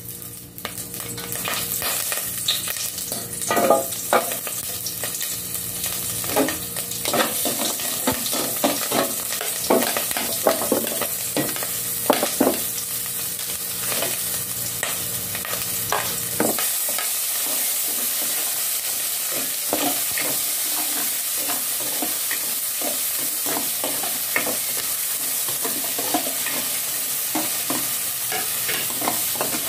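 Onions and tomatoes sautéing in hot oil in a stainless steel pot, a steady sizzle. A ladle clacks and scrapes against the pot as it stirs.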